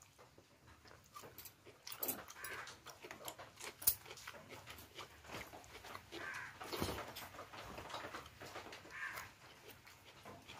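Close-up sounds of a person eating khichdi: wet chewing, lip-smacking and breaths, with many small clicks and one sharp click a little under four seconds in.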